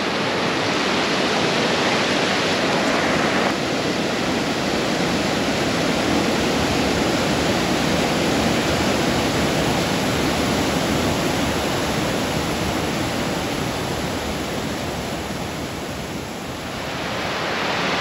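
Waterfall pouring down stepped rock ledges: a steady, even rush of falling water, its tone shifting slightly about three and a half seconds in.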